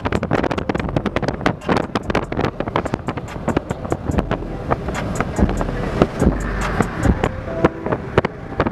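Car driving at highway speed, heard from inside: a steady low road and wind rumble under dense, irregular crackling thumps of wind buffeting the microphone.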